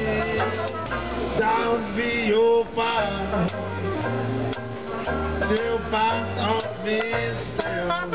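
A small acoustic trad jazz band playing: a plucked double bass walks through low notes, a banjo is strummed, and a clarinet plays a wavering melody over them.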